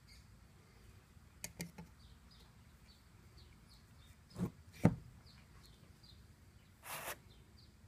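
A few light knocks, then two sharp thumps about halfway through, and a short hiss near the end, with faint high bird chirps in the background.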